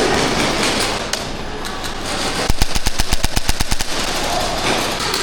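Airsoft electric gun firing a rapid full-auto burst of about a second and a half, a fast even string of sharp cracks, after a single shot about a second in.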